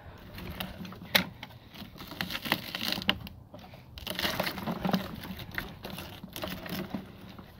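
Hand-cranked, 3D-printed compost shredder grinding a tough chunk of cauliflower: irregular crunching and cracking as the plastic rollers bite into it, with a sharp crack about a second in.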